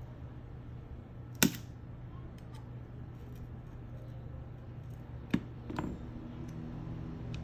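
Three sharp clicks of small tools against a phone during disassembly, about a second in and twice near the end, over a steady low hum.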